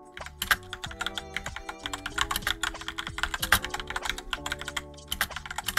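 Fast typing on a computer keyboard: a dense, irregular run of key clicks, over background music with held tones.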